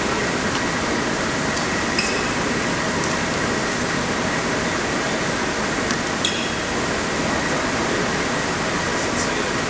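Steady background noise of a crowded indoor sports hall, with a handful of brief high squeaks scattered through it, typical of players' shoes on the court floor.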